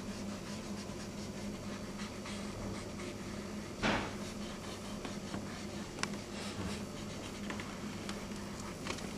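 Pencil strokes scratching on drawing paper over a steady low room hum, with one louder brushing rustle about four seconds in and a few light ticks later on.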